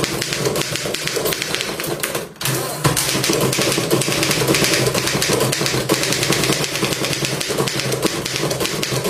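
Antique manual typewriter being typed on quickly: a fast, uneven run of key and typebar clacks, with a brief pause about two seconds in.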